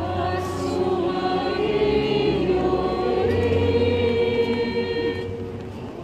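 Church choir singing liturgical music, holding long notes, ending about five seconds in.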